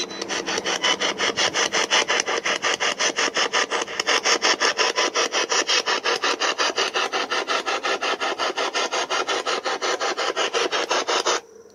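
Handheld portable radio used as a spirit box, sweeping rapidly through stations: a steady, choppy stream of static and clipped radio fragments pulsing several times a second, which cuts off abruptly near the end when it is switched off.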